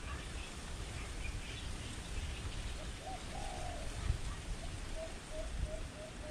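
Doves cooing: one coo about three seconds in, then a quick run of short, clipped notes about two seconds later, over a steady low rumble.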